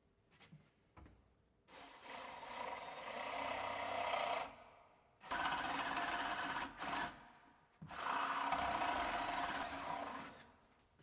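Power drill with a flat (spade) bit boring a hole into the edge of a wooden door, run in three bursts of a few seconds each with short pauses between.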